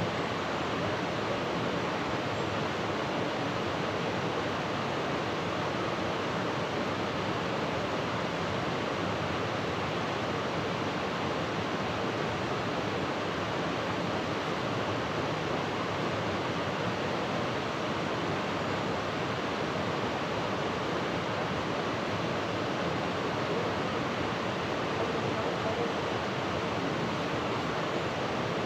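Steady, even rushing of water, with no break or change.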